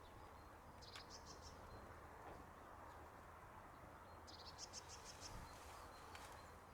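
Faint outdoor quiet with two short, high-pitched trills of rapid chirps, about a second in and again past four seconds: a small bird singing in the distance.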